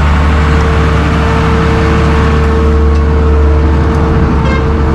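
Diesel engine of a Svedala padfoot (sheepsfoot) soil compactor running close by: a loud, steady drone with a steady whine over it.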